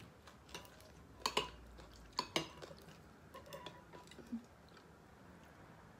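A person eating a meal: a few sharp clicks and crunches, mostly in two pairs between about one and two and a half seconds in, with smaller ticks of chewing and dish contact after them, then quiet.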